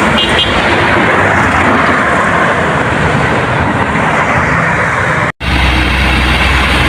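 Steady road-vehicle noise, then an abrupt cut about five seconds in to a heavy engine idling with a steady low rumble.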